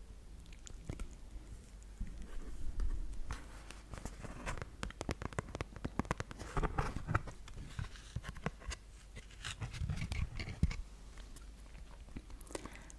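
Fingernails tapping and scratching on the thick cardboard pages of a small board book close to the microphone, in quick irregular taps, with the book handled and a page turned near the end.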